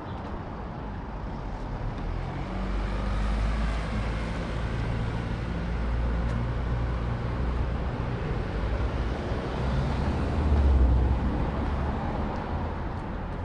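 A motor vehicle's engine running close by in street traffic: a low rumble that builds, is loudest about eleven seconds in, then eases off.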